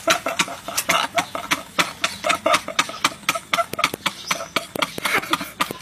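Two men laughing hard and uncontrollably, in rapid breathy bursts that keep coming without a break.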